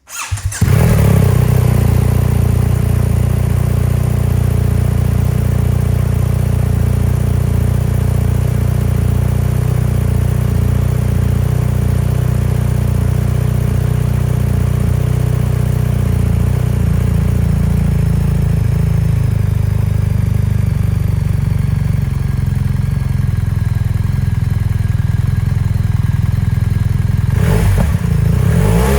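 BMW R1300 GS boxer-twin engine starting up and idling through an Akrapovic exhaust, with the dB killer removed and the exhaust valve held open by a HealTech Servo Buddy. There is a brief rev near the end.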